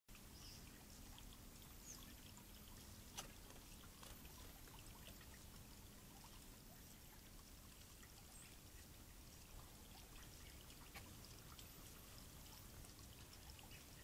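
Faint, steady trickle of water running over a stone column fountain into its basin, with a single sharp click about three seconds in.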